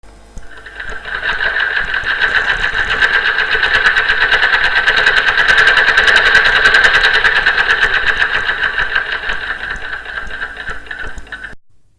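Victoria sewing machine running, a fast, even clatter that grows louder over the first few seconds, then eases off and stops abruptly near the end.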